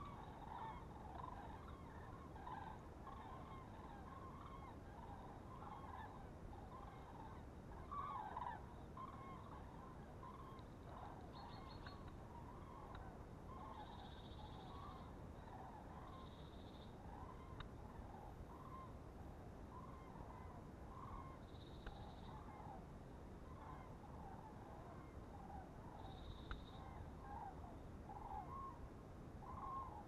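Faint flock of migrating wild geese calling, a continuous chatter of many overlapping honks.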